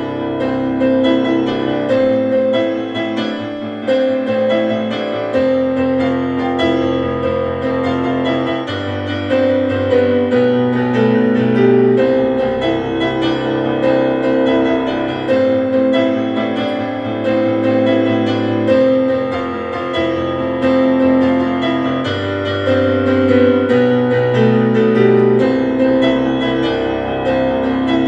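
Background music: a piano or electric keyboard piece of sustained chords over bass notes that change every couple of seconds.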